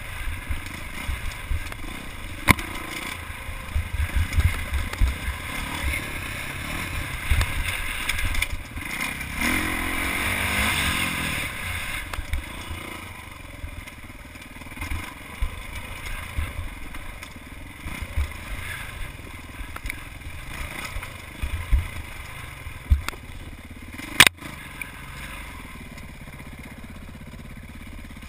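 Off-road motorcycle ridden over a rocky trail, its engine revving up and down with the throttle, along with rumbling and scraping from the rough ground. Two sharp knocks stand out, one a couple of seconds in and one near the end.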